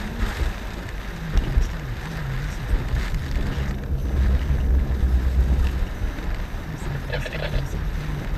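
Car driving in heavy rain and wind, heard from inside: tyres hissing on the wet road, with a louder low rumble from about four to six seconds in as the tyres cross the bridge's steel grate deck.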